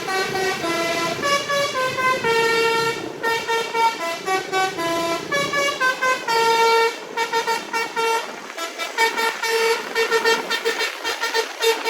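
Telolet musical horn on a bus playing a quick tune of stepping notes that jump up and down. In the second half it switches to rapid short staccato toots.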